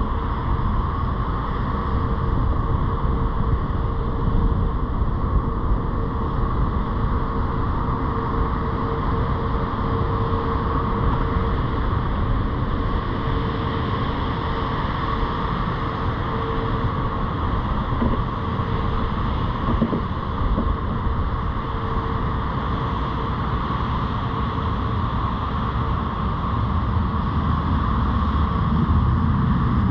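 Car engine and tyre noise heard from inside the cabin as the car rolls slowly over cracked pavement, with a faint steady hum throughout; the low rumble grows a little louder near the end.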